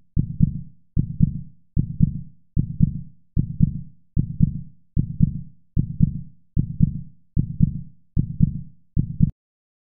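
Heartbeat sound effect ticking off the quiz's answer countdown: a low double thump about every 0.8 seconds, stopping abruptly shortly before the end.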